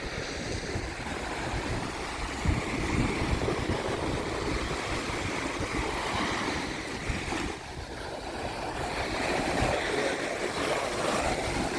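Gulf surf washing on the beach with a steady sea breeze buffeting the microphone in low, uneven gusts.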